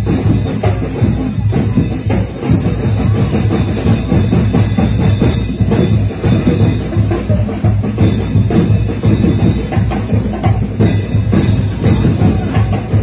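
Street-parade drumbeater group playing a loud, continuous drum beat without a break.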